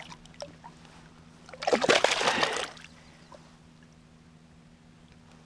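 A hooked largemouth bass splashing at the water's surface beside the boat while held in the hand: one brief burst of splashing about two seconds in, lasting about a second.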